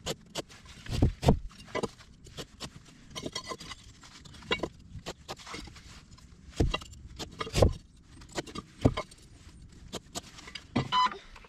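Irregular small knocks, clicks and scrapes of a larch timber beam and a metal square being handled while the beam is marked out for cutting. A few louder wooden knocks come about a second in and again past the middle, as the beam is shifted and turned over.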